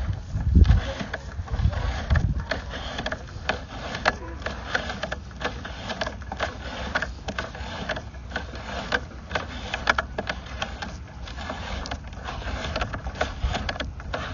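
Sewer inspection camera being pushed through a drain line: irregular clicking and scraping as the camera head and push cable rub inside the pipe, over a steady low rumble, with a few heavier thumps in the first two seconds.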